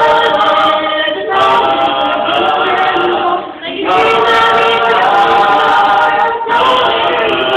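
A choir singing a cappella, held chords in several voice parts, with a short break for breath about halfway through and another near the end.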